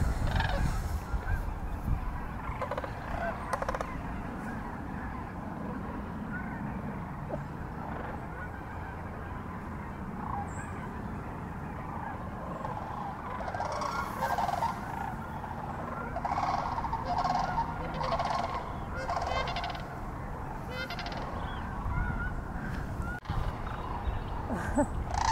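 A flock of sandhill cranes calling, with many overlapping honking calls that come more often from about halfway through.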